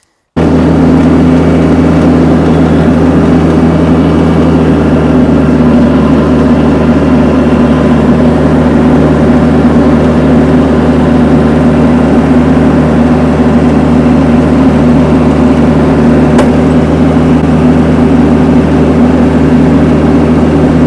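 Tractor engine running at a steady speed, pulling a log up a slope. A single brief click comes about three-quarters of the way through.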